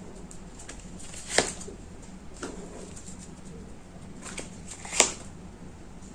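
Tarot cards being drawn and laid down by hand: soft card handling with two sharper snaps, about a second and a half in and again about five seconds in.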